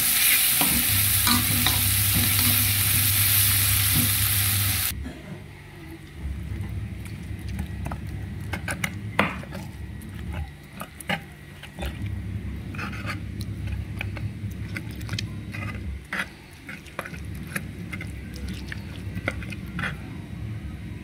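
Chilli, tomato and shallot sambal sizzling in hot oil in a wok while a spatula stirs it. About five seconds in the sizzling cuts off, and a stone pestle grinds and crushes the fried sambal terasi in a stone mortar, with scattered knocks and scrapes.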